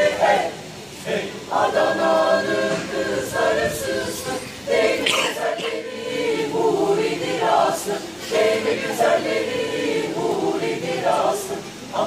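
Mixed choir of men's and women's voices singing a cappella in several parts, with a brief pause about a second in.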